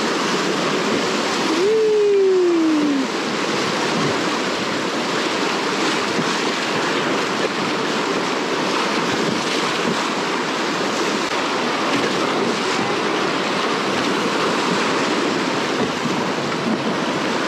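Whitewater of a river rapid rushing and splashing steadily around a raft running through it. About two seconds in, a single tone falls in pitch over about a second.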